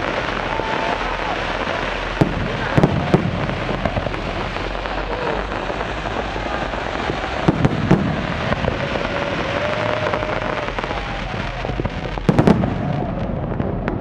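New Year fireworks display going off: a dense, continuous din with sharp bangs about two, three and eight seconds in, and a cluster of louder bangs near the end.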